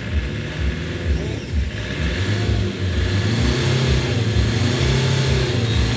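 Tata Safari engine heard at its tailpipe, with water in the muffler being flushed out. The exhaust pulses unevenly, then the engine is revved and held at a higher speed from about two seconds in.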